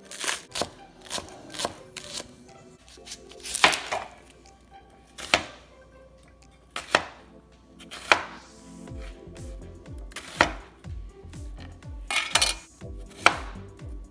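Chef's knife chopping vegetables on a plastic cutting board: sharp, irregular knocks of the blade striking the board as it cuts through green onions, then onion and ginger. Quiet background music runs underneath.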